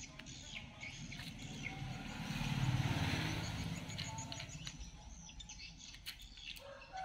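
Birds chirping in the background, with a rush of noise that swells and fades around the middle and a few faint clicks.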